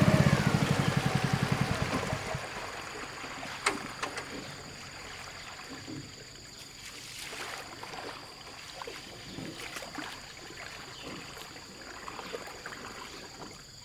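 A small single-cylinder boat engine winds down and stops over the first two seconds. Water then laps and splashes against a small boat, with scattered light knocks of wood in the quiet that follows.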